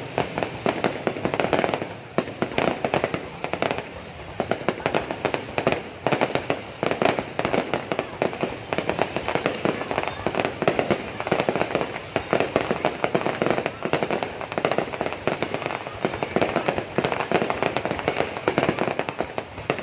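Fireworks going off in a rapid, unbroken string of bangs and crackles.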